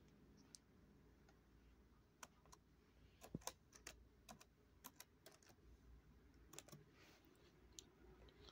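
Faint, irregular clicks of typing on a computer keyboard, a few keys at a time with short pauses between.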